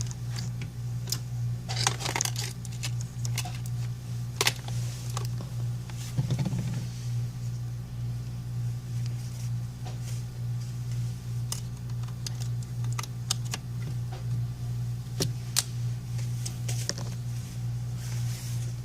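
Scattered light clicks and taps of small tools and iPhone 5c parts being handled on a repair bench, over a steady low hum.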